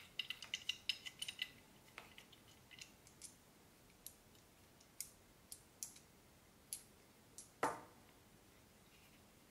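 Small clicks and taps of metal and plastic as a Canon EF to Sony E-mount lens adapter is handled and its detachable tripod foot is taken off: a quick run of clicks in the first second and a half, then scattered single clicks, and one louder knock near the end.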